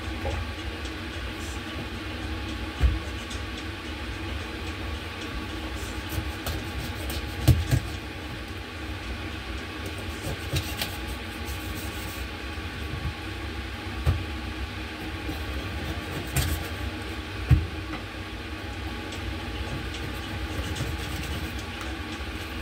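Steady low kitchen hum, with irregular soft thumps and a few sharp knocks from food being prepared at the counter.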